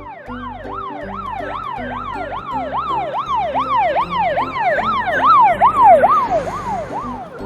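Fire engine siren in a fast yelp, its pitch sweeping up and down about two and a half times a second. It grows louder, then fades near the end.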